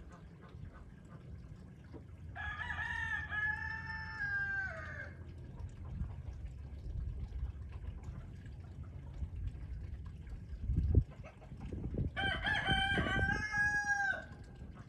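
A rooster crowing twice, each crow a long call of about two and a half seconds that drops in pitch at the end, the second coming about ten seconds after the first. A steady low rumble runs underneath, and a single thump comes just before the second crow.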